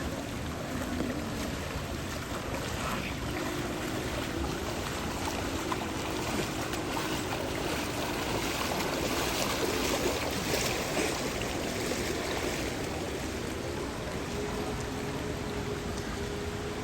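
Knee-deep floodwater sloshing and splashing as people wade through it, a steady wash of water noise. A faint steady hum runs underneath, rising slightly in pitch near the end.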